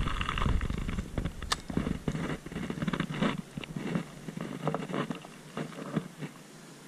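Spinning reel being cranked to retrieve a cast lure: an uneven rattling and scraping, with one sharp click about a second and a half in, thinning out toward the end.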